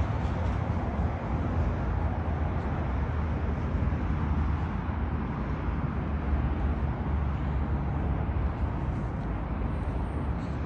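Steady outdoor background noise with a low rumble, without distinct events.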